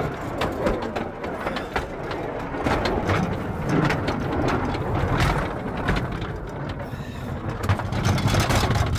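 A vehicle running, with a steady low rumble and frequent rattles and knocks throughout.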